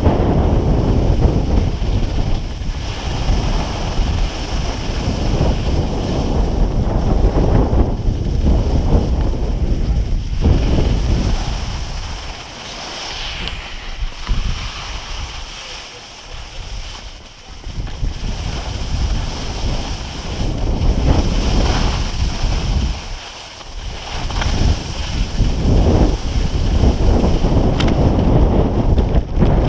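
Wind buffeting the microphone of an action camera on a skier going fast downhill, with the hiss of skis sliding on groomed snow. The buffeting eases for several seconds around the middle and again briefly later, leaving mostly the ski hiss.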